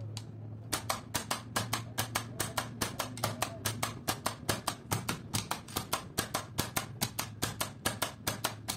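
Contactor and its driving digital timer relay clicking rapidly and evenly, about five or six clicks a second, as the timer switches the contactor coil on and off in quick cycles. A steady low hum runs underneath.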